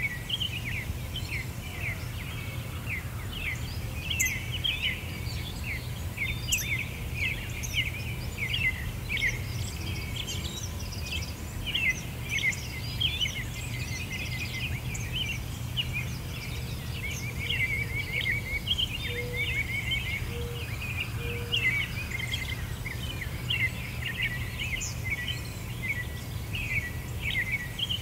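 A continuous chorus of many small birds chirping, in short, rapid, high calls, over a steady low hum.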